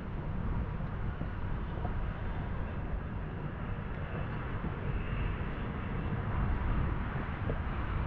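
Steady low outdoor rumble of city background noise, mostly distant traffic, with no distinct events.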